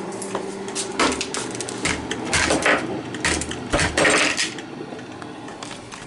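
Irregular clicks, knocks and short scrapes of hard objects being handled, busiest in the middle, over a faint steady hum.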